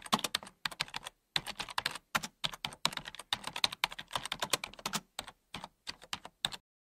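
Computer keyboard typing in fast runs of keystrokes with short pauses, the clicks thinning out and stopping just before the end.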